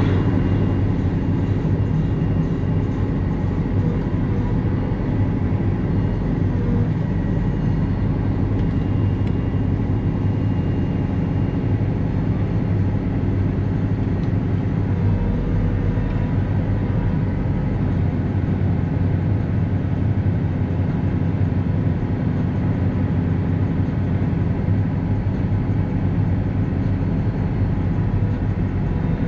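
Valtra 154e tractor's diesel engine running steadily at working revs, driving the hydraulics of the rear-mounted Kesla crane as it loads, heard from inside the cab as a constant low drone.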